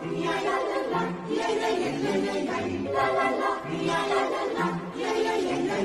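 Choir singing, several voices holding chords that change every half second or so.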